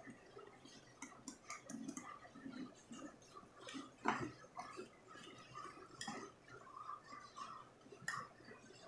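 Wire whisk beating thin pancake batter in a glass bowl: faint wet squishing with irregular clicks of the wires against the glass, and a sharper tap about four seconds in.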